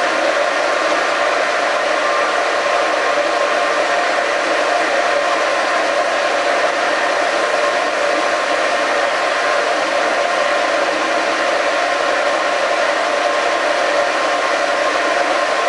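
Horizontal boring mill running with a steady hum, its spindle turning a boring bar at about 565 RPM as the bar feeds slowly into a welded connecting-rod bore on a light finishing cut of a couple of thousandths per side.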